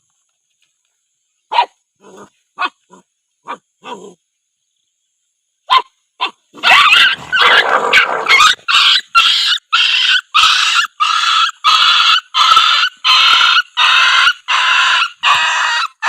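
A dog yelping: a few short calls, then a loud, regular run of yelps at about two a second.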